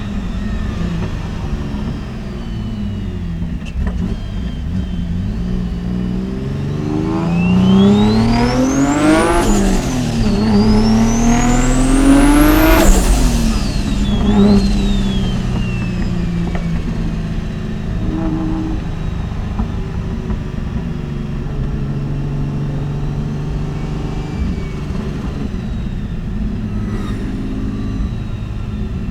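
Mitsubishi 3000GT VR4's big-turbo V6 pulling hard: steady running, then the revs climb through one gear, dip briefly at a gearchange about ten seconds in, and climb again until about thirteen seconds, with a high whine rising alongside. The revs then fall away and it settles back to a steady cruise.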